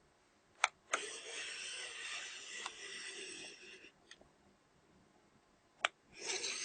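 Handheld i1 Pro spectrophotometer scanning rows of colour patches on a printed sheet. Two sharp clicks come first, then about three seconds of sliding hiss as it glides across the paper. After a pause there is another click and a new scan begins near the end.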